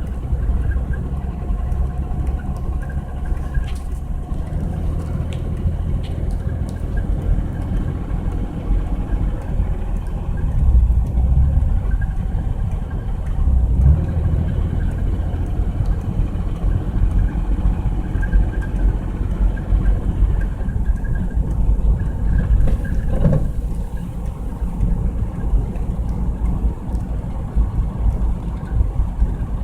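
Honda Passport SUV driving on snowy roads: a steady low rumble of engine and road noise.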